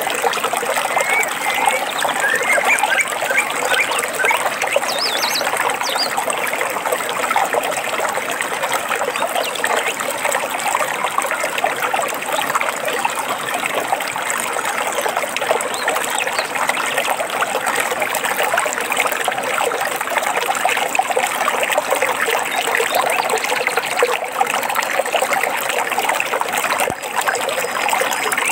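A small stream trickling and babbling steadily over stones. A couple of faint bird chirps come near the start.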